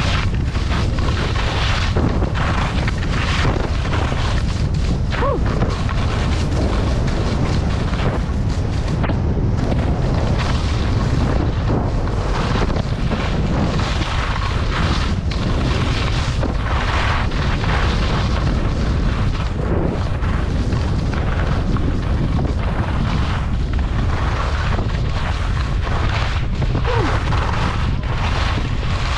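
Wind buffeting the microphone at skiing speed, a steady loud rumble. Over it comes the recurring hiss and scrape of skis sliding and turning on snow.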